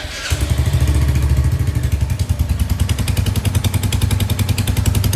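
Royal Enfield Hunter 350's 349 cc single-cylinder engine starting and settling into an even, pulsing idle about a third of a second in. Its exhaust has a cracked, split-sounding ('fati-fati') note from an air leak at the exhaust header joint by the engine, which the owner blames on mounting nuts not tightened properly.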